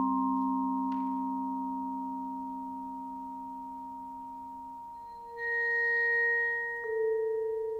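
Vibraphone played with yarn mallets. A chord struck at the start rings on, slowly fading, then new notes are struck about five and seven seconds in.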